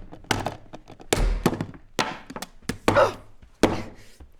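A blender being bashed hard over and over: a run of heavy thunks and knocks, about two or three a second, and it does not break.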